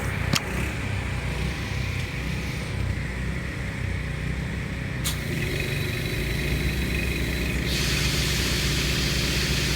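Several small gasoline pressure washer engines running together with a steady drone, with the hiss of water jetting from the wand with its nozzle tip removed. The hiss gets louder and brighter about eight seconds in.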